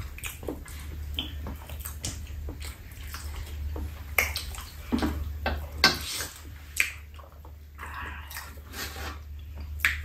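Close-up eating sounds: people chewing soft sweet potato and tteokbokki, with irregular wet lip-smacks and mouth clicks, several sharper ones in the second half, over a steady low hum.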